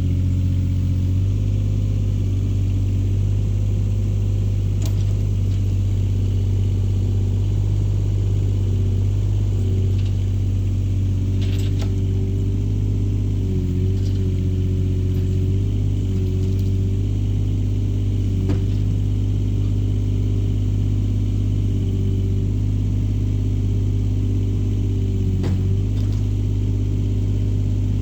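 A large engine running steadily for the whole stretch, its pitch shifting slightly now and then as the load changes, with a few sharp clicks and knocks on top.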